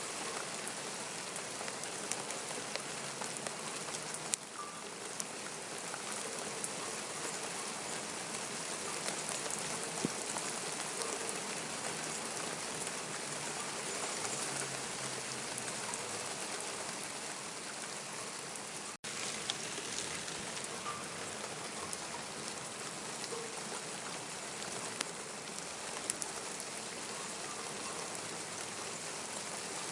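Steady rain falling, an even hiss scattered with the small sharp ticks of single drops hitting surfaces. The sound cuts out for an instant about two-thirds of the way through.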